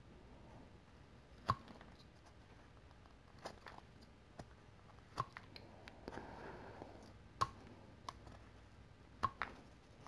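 Whittling knife cutting basswood by hand: quiet, irregular sharp clicks as the blade bites and small chips snap off, with a soft scrape about six seconds in.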